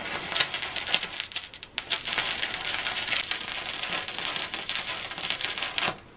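Stick arc welding on sheet steel: the arc's dense, fast crackling sizzle, which breaks off for an instant about two seconds in and stops just before the end.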